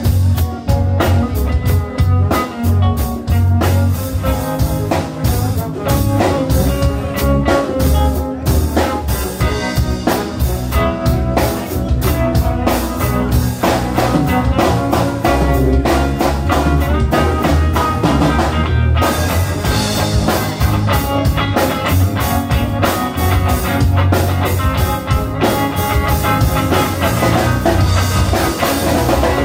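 Live band playing: electric guitar and bass guitar over a drum kit keeping a steady beat.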